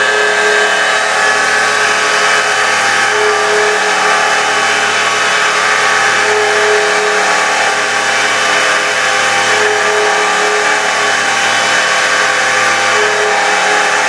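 CNC machine drilling flange holes, running steadily with many steady tones. A brighter tone comes in for about a second roughly every three seconds.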